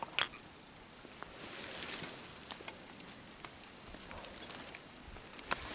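Faint rustling and light scattered clicks of clothing and gear, with soft gusts of wind swelling and fading twice.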